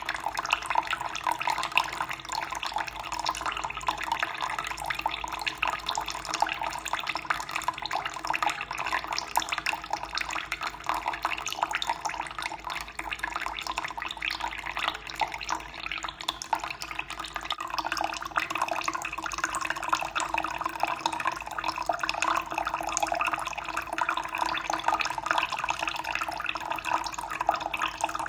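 Water running and splashing steadily, a dense continuous patter of small splashes.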